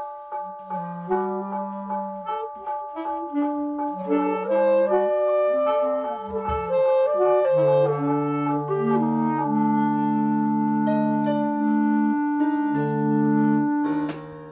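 Two clarinets and an alto saxophone playing a concert band piece from sight, over a piano part. Quick repeated notes at the start give way to longer held notes.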